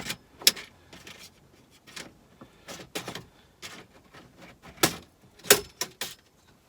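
Plastic clips of a VW Golf Mk5's silver dash trim panel clicking and snapping as it is prised off with a plastic trim tool: a string of sharp clicks at uneven intervals, the loudest about half a second in and again near the end.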